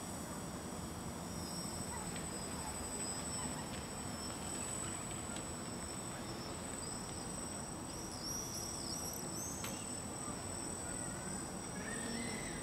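Steady outdoor background noise with a constant thin, high-pitched tone. A cluster of short, high chirps comes about eight seconds in.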